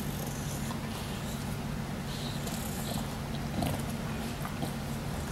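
English bulldog chewing and mouthing a cloth, with small wet clicks and snuffly breaths, over a steady low hum.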